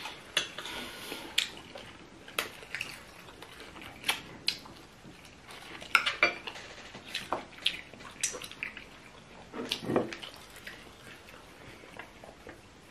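Mealtime eating sounds: chewing on chicken feet in pepper soup, with irregular sharp clicks and taps of cutlery against plates and dishes.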